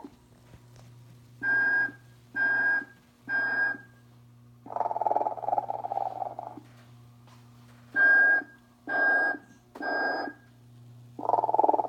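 1994 Telco sleeping, snoring, whistling Santa motionette running through its sound cycle over a steady low hum: three short whistles, a long snore, three more whistles, and another snore starting near the end.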